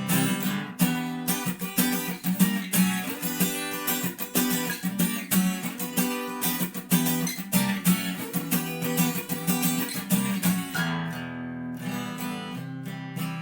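Acoustic guitar strummed in a quick, steady rhythm of chords, with no voice. The strumming gets lighter about eleven seconds in.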